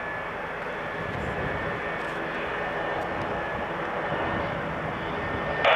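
Shorts 330's twin PT6A turboprop engines running steadily on approach, a low drone with a faint high steady whine. A louder burst of radio hiss cuts in at the very end.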